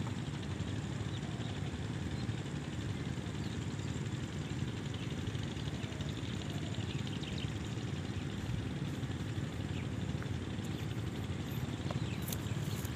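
Kirloskar 5 hp diesel water-pump engine running steadily.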